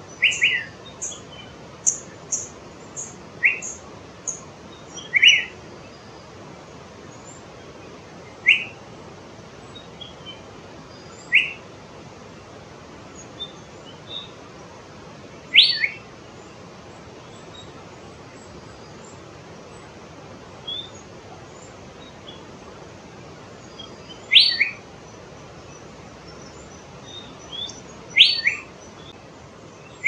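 Asian fairy-bluebird calling: short, liquid two-note calls repeated about eight times at uneven intervals, with a long pause midway.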